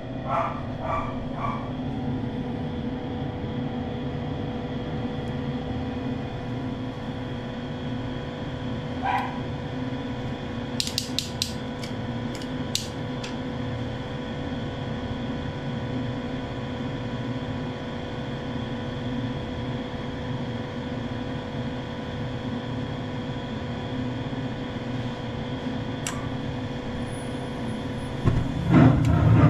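New Carrier gas furnace starting up: its draft inducer motor running with a steady hum. A few sharp clicks come about eleven to thirteen seconds in, and the sound grows louder about a second before the end.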